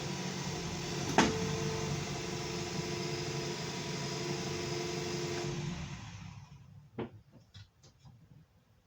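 Car engine running steadily, then shut off about five and a half seconds in, dying away within a second. A sharp click sounds about a second in, and a few lighter clicks follow the shutdown.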